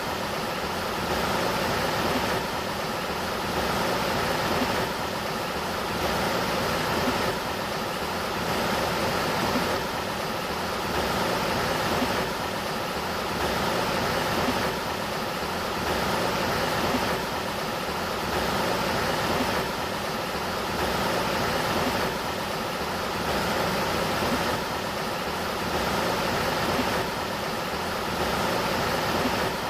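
Sacramento River water flowing, a steady rushing that swells gently about every two seconds.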